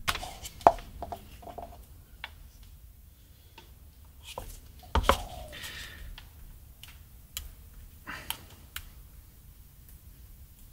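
A paintbrush dabbing and stroking paint stripper onto a painted guitar body in short scrubbing strokes, among scattered light clicks and taps; the loudest is a knock about five seconds in.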